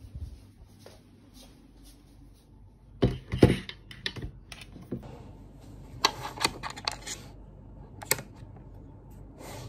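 A closed laptop being handled on a desk: a few knocks, loudest about three seconds in, then a quick run of clicks around six to seven seconds and single taps near the end.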